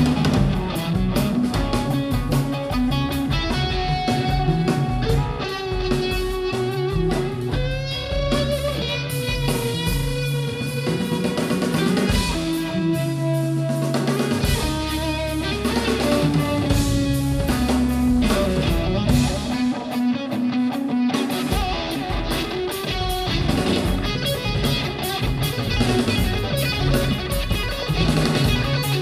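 A rock band playing live through stage amplifiers, in an instrumental passage with no singing: electric guitar holding long notes and bending them, over drum kit and bass guitar.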